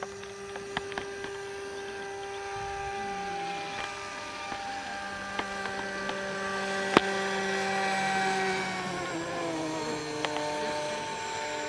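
Homemade RC airplane's electric motor and propeller whining in flight at a steady pitch, growing louder as it approaches, then dropping in pitch as it passes overhead. A sharp click about seven seconds in.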